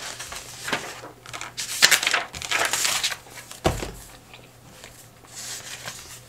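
Paper pages of a spiral-bound notebook being turned, rustling in several swishes, with a single sharp tap a little past halfway.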